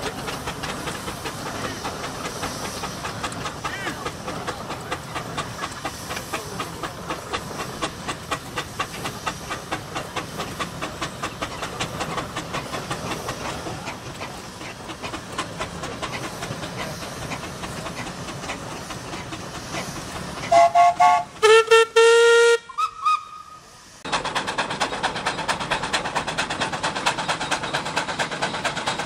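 Steam traction engines working hard under a heavy load, their exhausts chuffing in a rapid, even beat. About 20 seconds in, a steam whistle sounds a few short blasts, the loudest part. Near the end the chuffing resumes, faster and denser.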